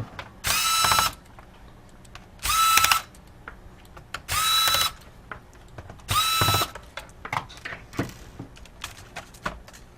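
Electric screwdriver backing out the four screws that hold a laptop keyboard in: four short runs of about half a second each, the motor whine rising quickly and then holding, about two seconds apart. Light clicks and taps of handling follow.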